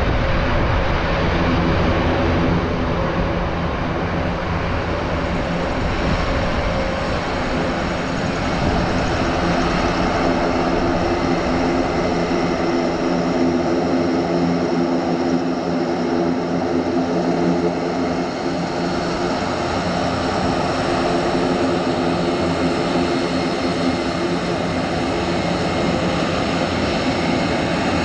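Airbus A400M's four TP400 turboprop engines running steadily with eight-bladed propellers turning as the aircraft taxis on the sand: a continuous propeller drone with several held tones.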